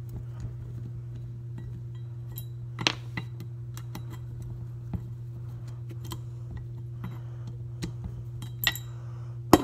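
Screwdriver turning a screw out of a water pump's motor housing: scattered small clicks and metallic clinks, the sharpest about three seconds in and again near the end, over a steady low hum.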